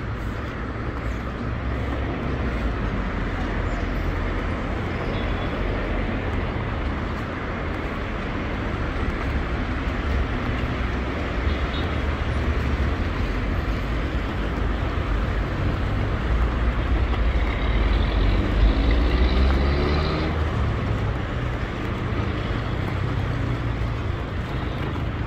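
Street traffic: a steady rumble of vehicles on the road beside the sidewalk. About two-thirds of the way through, one vehicle's engine rises in pitch as it accelerates past.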